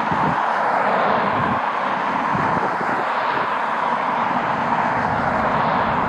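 Airliner's jet engines running in a steady, even noise, with strong wind buffeting the microphone in irregular low gusts.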